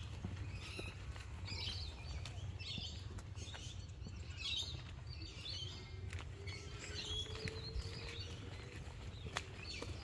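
Small birds chirping in short bursts that come back every second or so, with footsteps on a paved path and a steady low rumble underneath.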